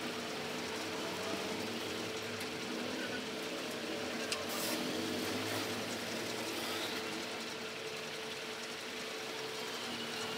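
A steady mechanical hum with a constant tone, running evenly throughout, with one faint click about four seconds in.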